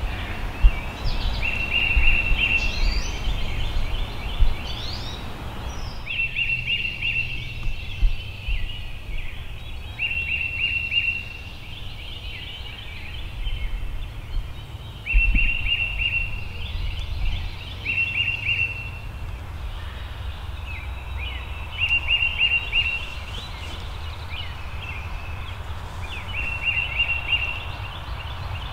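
Wild turkey gobbling again and again close by, each call a rattling burst about a second long, repeated every two seconds or so.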